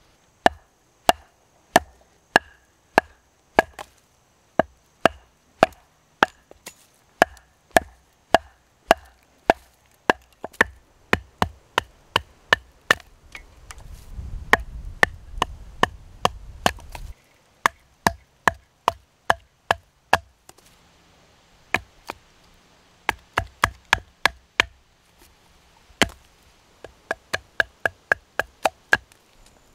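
Wooden baton striking the spine of a knife again and again, driving the blade down through a round of wood to split off the material around a mallet handle (batoning). Sharp knocks about two a second in runs with short pauses, with a low rumble under them for a few seconds midway.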